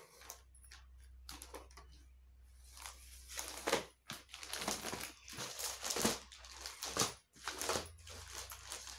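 Clear plastic packaging on saree boxes crinkling and rustling in irregular bursts as the boxes are handled and moved, busiest in the middle, over a steady low hum.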